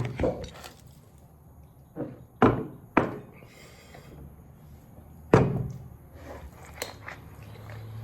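A few dull thunks of shot glasses being set down on a table after the shots are downed. The loudest comes about five seconds in.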